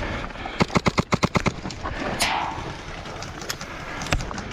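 Airsoft gun firing a rapid burst of about nine shots, then a few single shots, with a brief hiss about two seconds in.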